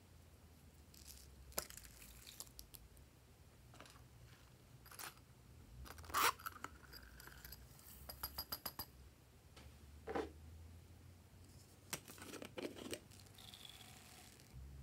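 Small plastic craft containers being handled and their lids opened: scattered clicks and knocks, the loudest about six seconds in, and a quick run of clicks around eight seconds. Near the end, small foam beads pour and rattle into a glass dish.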